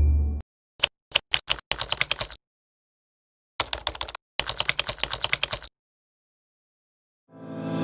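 Keyboard typing sound effect: two runs of quick key clicks with a pause of about a second between them, matching a title being typed out letter by letter. Music fades in near the end.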